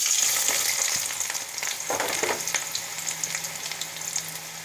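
Chopped onions sizzling and crackling in hot oil in a kadai, loudest at the start and easing slightly, with a few clicks and a knock about two seconds in.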